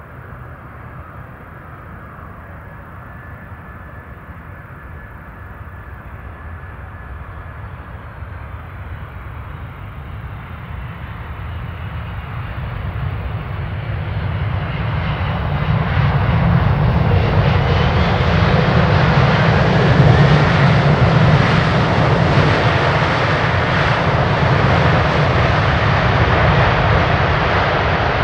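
Boeing 747-400 jumbo jet landing, its four General Electric CF6 turbofans a deep rumble with a faint whine on top. It grows steadily louder as the jet comes in close over the runway and touches down, and is loudest from about halfway through.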